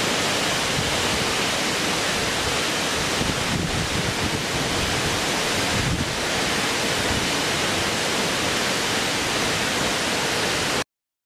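A steady rushing noise with no pitch, even from low to high, that starts and stops abruptly.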